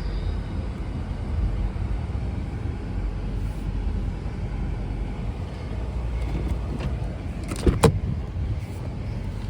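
Steady low rumble of a car, with a brief sharp clatter just before the eight-second mark.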